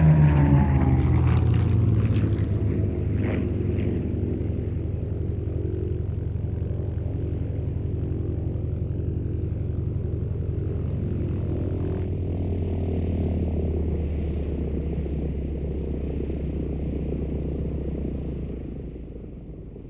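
Rolls-Royce Merlin V-12 piston engine of a Hispano Buchon fighter passing overhead, its pitch falling as it goes by, then a steady propeller drone as it climbs away, fading near the end.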